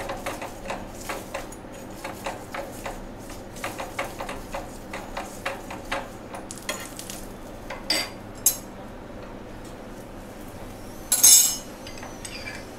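Steel spoon spreading oil over a paratha on a hot non-stick pan, about three quick scraping strokes a second, with a faint sizzle. After that come a couple of sharp clicks and, near the end, one loud ringing clink of metal on metal.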